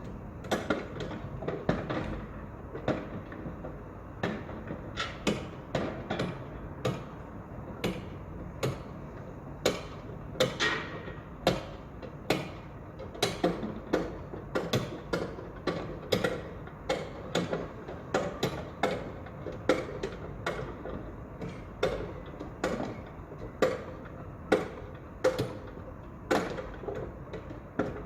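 Construction site work sounds: irregular sharp knocks and impacts, about two a second, over a steady low background rumble.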